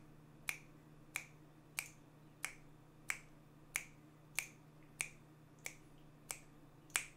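Finger snaps keeping a steady beat, about three every two seconds, eleven in all, some louder than others. A faint low steady hum runs underneath.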